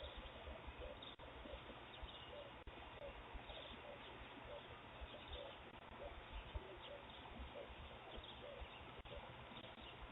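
Faint outdoor background through a Ring doorbell camera's microphone: steady hiss and low rumble, with faint, scattered bird chirps.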